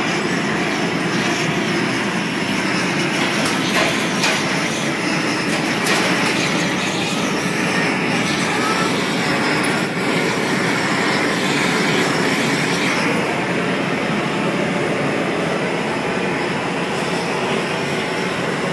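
Steady, even roar of a glass hot shop's gas-fired furnace and ventilation running, with a few faint clicks about four and six seconds in.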